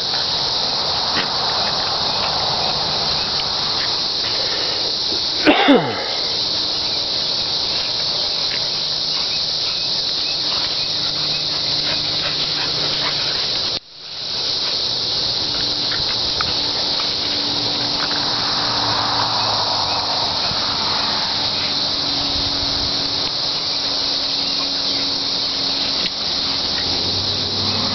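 Steady high-pitched chorus of insects in the grass, with one short squeal falling steeply in pitch about five seconds in. The sound drops out for a moment about halfway through.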